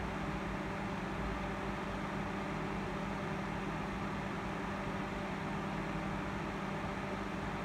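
Small desk fan running: a steady whir with a low, constant hum under it.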